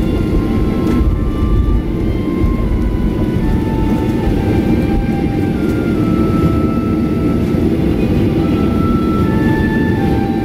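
Cabin noise of a Boeing 737-800 rolling on the ground: a steady, loud rumble of its CFM56 engines and wheels. Over it runs a faint string of short notes stepping between pitches.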